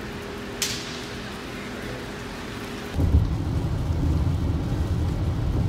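Steady low hum with a brief sharp crackle under a second in. About three seconds in it gives way to much louder rain on a car's windshield and roof over low road rumble while driving.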